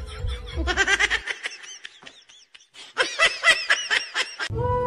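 High-pitched laughter in quick repeated bursts, heard twice: about half a second in and again about three seconds in.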